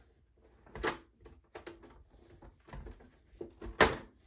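Flathead screwdriver prying the plastic front cover off an Ooler control unit, its plastic retention clips clicking loose: a sharp click about a second in, a few faint knocks, and the loudest snap near the end.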